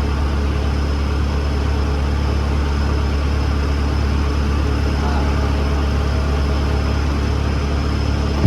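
Diesel engine idling steadily with an even low drone.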